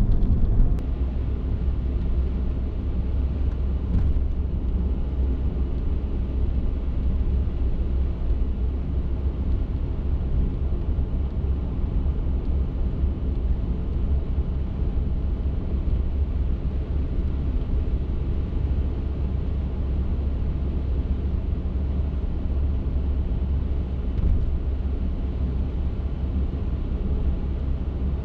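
Car driving along, a steady low rumble of road and engine noise on a snowy road.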